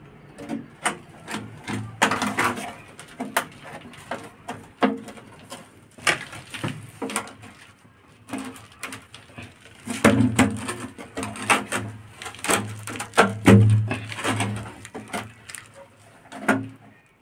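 Plastic uPVC drain pipes and fittings being handled and pushed together: a rapid, irregular string of plastic knocks, clacks and scrapes, busiest in the second half.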